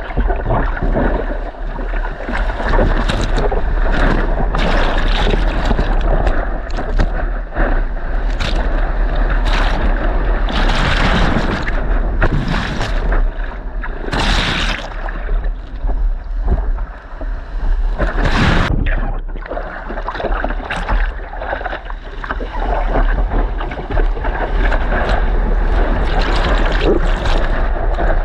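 Churning lake surf and water sloshing against a surfboard, with strong wind buffeting a waterproof GoPro's microphone, a steady low rumble. Several louder splashes break through, the sharpest about two-thirds of the way in.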